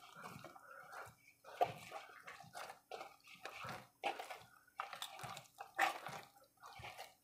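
Oiled dough being kneaded by hand in a bowl: soft, wet squelching and slapping in irregular pulses.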